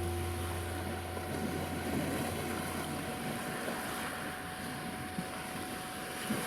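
Sea waves washing on the shore as a steady rushing noise, under a thin, steady 741 Hz sine tone. Soft, low sustained music notes sound in the first second or so, then fade out.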